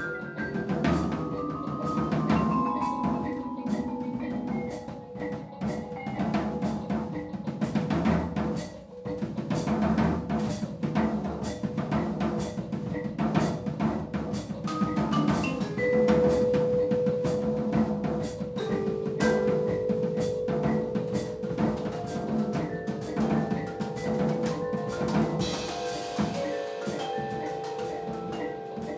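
Vibraphone and drum kit playing together: busy drumming on snare, bass drum and cymbals under struck vibraphone notes. From about halfway, long held notes ring on under the drumming.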